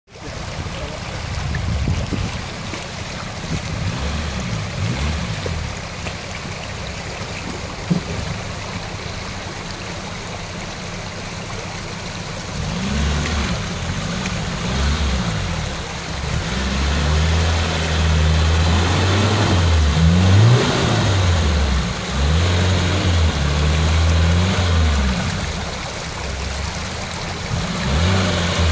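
Lada Niva's engine revving up and down repeatedly as the 4x4 climbs a rocky stream bed through flowing water, quieter for the first dozen seconds and then surging again and again. The stream rushes steadily under it, and a single sharp click comes near the middle.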